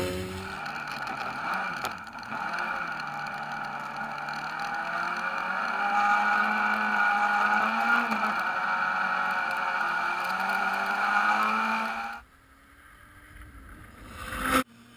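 Supercar Lite rallycross car's engine heard from on board while driving on ice, running at a steady note with small rises and falls in pitch. About twelve seconds in, it cuts to a quieter approaching engine that swells, then stops abruptly near the end.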